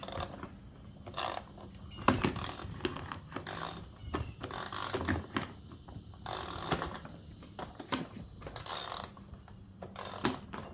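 Toy wrench tightening a wheel nut on a toy car: a series of short, irregular clicking turns, about one every second or two.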